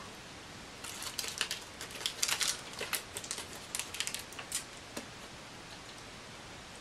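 Crinkling and crackling of plastic Dum-Dum lollipop wrappers being handled: a flurry of small crackles from about a second in until about five seconds in.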